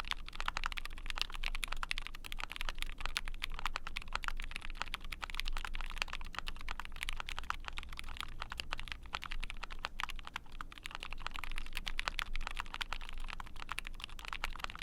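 Fast, continuous typing on a mechanical keyboard: an Ai03 Vega with a POM plate, GMK keycaps and lubed linear Frankenswitches built from vintage Cherry bottom housings, UHMWPE stems and 62 g springs. It is a dense run of rapid keystroke clicks, on the deeper side.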